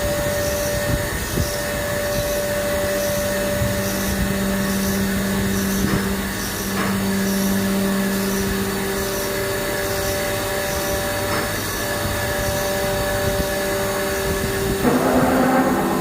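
CNC milling machine running: a steady machine hum with several held tones and faint regular ticks high up. Near the end the tones change abruptly and a rougher sound sets in.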